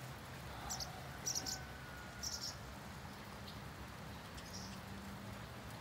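Small birds chirping faintly: a few short, high chirps about a second apart, over a low steady hum.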